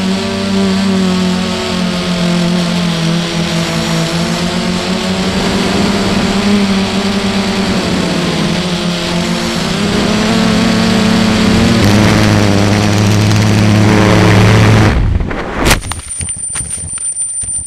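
Quadcopter's electric motors and propellers droning steadily through the onboard camera, growing louder toward the end. About fifteen seconds in, the drone goes down into tall grass and the drone sound cuts out. There is one sharp impact, in the crash that broke a propeller blade off at the hub, then a thin high steady whine with faint crackling.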